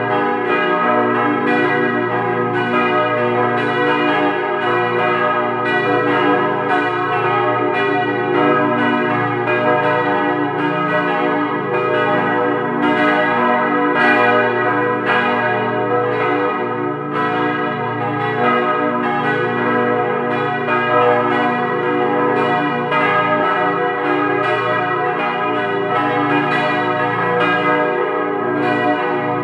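Swinging bronze church bells cast by Rüetschi in 1927, ringing together in a full peal: overlapping strikes about twice a second over a dense, sustained ringing hum.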